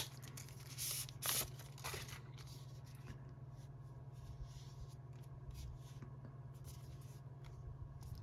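Soft rustling and handling of the phone's thin plastic protective film and packaging, with a few brushing swishes in the first two seconds, then only faint light taps and rustles. A steady low electrical hum sits under it.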